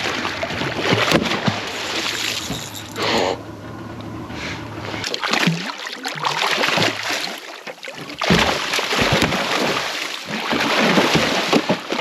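Water splashing and sloshing in irregular surges at the side of a small boat, with sharp knocks, as a hooked blacktip reef shark is held alongside. A low steady hum underneath stops about five seconds in.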